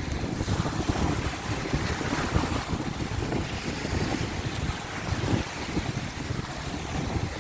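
Wind buffeting the microphone: a steady rushing noise with uneven, gusty low rumbling.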